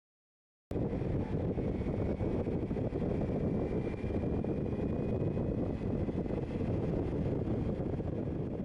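Wind rushing over the microphone on a moving motorcycle, a dense low rumble with a faint steady whine above it, cutting in suddenly about a second in.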